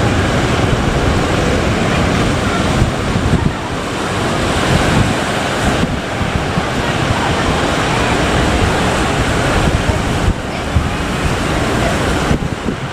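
Big ocean waves breaking and washing in continuously, loud, with wind buffeting the microphone.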